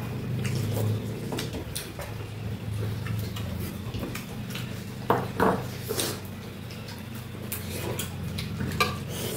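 Utensils clinking and scraping against dishes while eating, in scattered short clicks and knocks over a steady low hum, with a few louder knocks a little after five seconds in.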